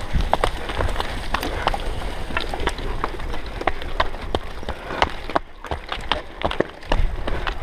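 Cyclo-cross bike rattling over a rough dirt and leaf track, with many sharp clicks and knocks from the bike and tyres over a low rumble, easing for a moment just past halfway.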